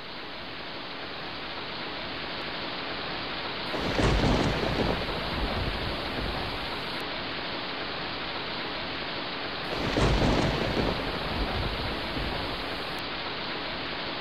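Wind buffeting the microphone over a steady hiss of outdoor noise, with two heavy low rumbling gusts, about four seconds in and again about ten seconds in.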